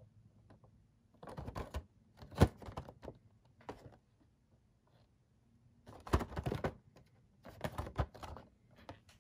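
Cardboard Funko Pop boxes with plastic windows being handled: fingers gripping, rubbing and tapping them in three clusters of scrapes and clicks, the sharpest click about two and a half seconds in.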